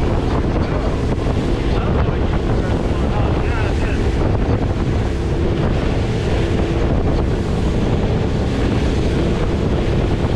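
Wind buffeting the microphone over the rush of water and the steady hum of a fishing boat's engine as the boat runs at speed across calm sea.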